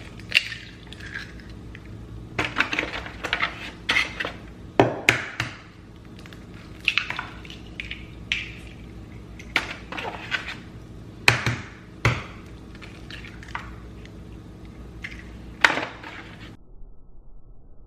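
Eggs being cracked against a bowl for scrambling, with irregular clinks and knocks of a utensil on the dish; the clinking stops abruptly near the end.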